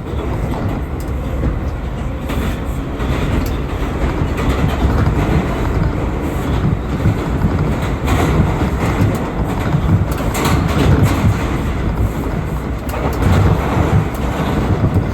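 R179 subway car running at speed in a tunnel: a steady loud rumble and wheel-on-rail roar, with scattered clicks from the track.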